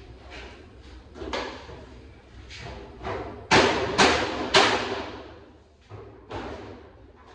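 A series of knocks and bangs from hands-on installation work, with three loud sharp bangs about half a second apart in the middle and lighter knocks before and after.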